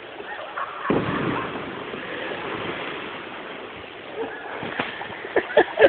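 A person hitting the pool from a high cliff jump: a sudden heavy splash about a second in, followed by a wash of water noise that fades over several seconds. Short shouts come near the end.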